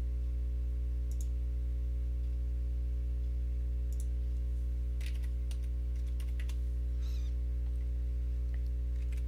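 A steady low electrical hum runs throughout, with scattered computer keyboard keystrokes and mouse clicks, a few single ones and then a small cluster about five to six seconds in as a dimension value is typed.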